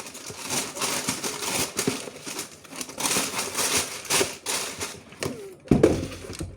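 Packaging paper rustling and crinkling in repeated surges as the shoe box contents are handled, with a knock near the end.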